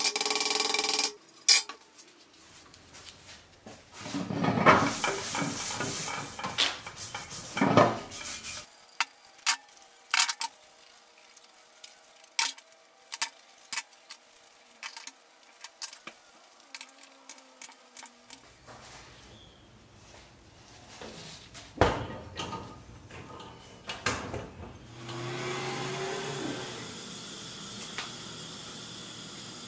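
A mechanical rattle cuts off about a second in, followed by a long series of sharp clicks, taps and clinks as the pressed-steel parts of a Nylint Bronco toy are handled and set down on a tabletop. Near the end a steady paint-sprayer hiss begins.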